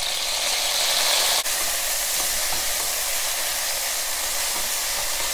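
Chopped tomatoes sizzling in hot oil with frying onions in an aluminium pressure cooker, stirred with a wooden spatula; a steady hiss, a little louder for the first second and a half.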